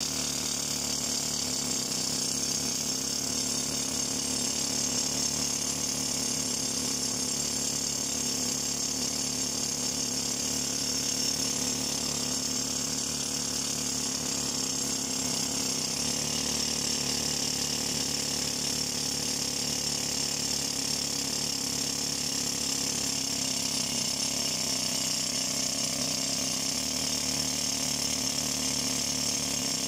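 Hand-held rock drill, fed by a hose, hammering steadily without a break as it bores a hole into rock.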